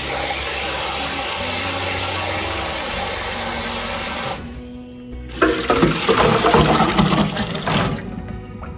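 Water from a pull-down kitchen sink sprayer running steadily over peeled garlic cloves in a glass bowl, stopping about four seconds in. About a second later the wet cloves are tipped into a stainless steel colander, clattering against the metal for a few seconds.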